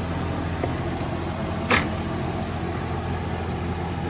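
A steady low mechanical hum throughout, with a single sharp metallic clack a little under two seconds in and a faint tick before it, from hand tools being handled in a toolbox drawer.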